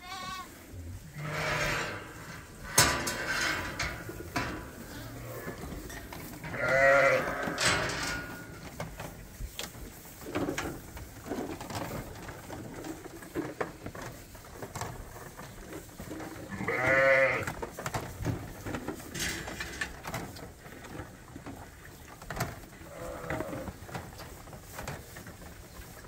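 Lambs bleating, with two long loud bleats about seven and seventeen seconds in and shorter, fainter ones between. Scattered sharp knocks come through as well.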